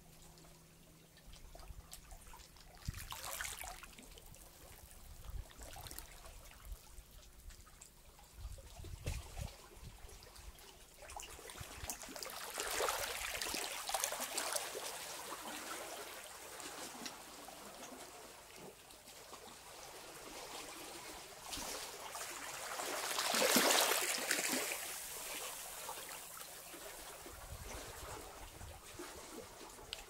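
Shallow seawater washing and trickling over rocky reef at the water's edge, coming in gentle surges; the biggest swell rises and falls about two-thirds of the way through.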